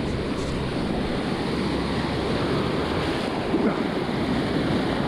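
Whitewater rushing steadily over a river block ramp and splashing around a stand-up paddleboard as it runs the rapid, with water washing over the board near the end.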